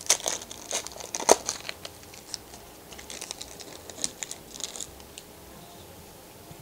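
Foil wrapper of a Panini Contenders Draft Picks trading-card pack being torn open and crumpled by hand, sharp crinkling that is densest in the first second and a half and comes again from about three to five seconds in, then dies down.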